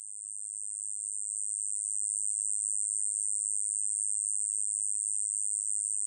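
Kkoma-yeochibejjangi katydid singing: one continuous high-pitched buzz, growing louder over the first two seconds and then holding steady.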